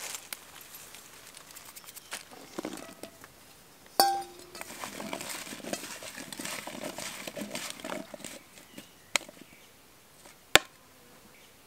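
Hands tossing diced raw potatoes and peeled garlic cloves with spices in an enamel bowl, the pieces clicking and rustling against each other and the bowl. About four seconds in, a clink sets the bowl ringing briefly. A single sharp click near the end is the loudest sound.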